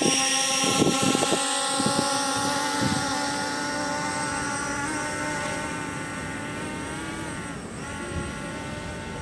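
Cfly Faith 2S quadcopter's propellers whining steadily, growing fainter as the drone flies forward and away. Late on the pitch briefly dips and comes back up.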